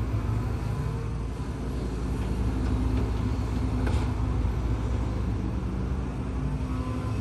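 Heavy diesel engine of a HIDROMEK HMK230LC excavator running steadily as it works, with a single sharp knock about four seconds in.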